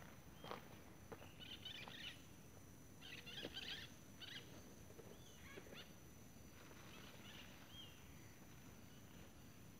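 Faint outdoor ambience: scattered soft rustles and clicks, with a short bird chirp a few times.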